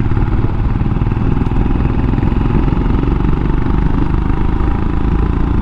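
Royal Enfield Himalayan's single-cylinder engine running steadily at an even speed, with no change in revs.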